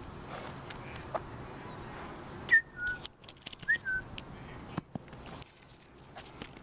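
Someone whistling a short two-note call twice, about a second apart, each time a high note dropping to a lower held one.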